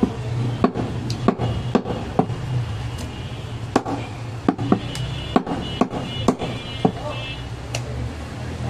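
Heavy butcher's cleaver chopping goat leg meat on a wooden log block: about a dozen sharp knocks at irregular intervals, roughly one every half second to a second, over a steady low hum.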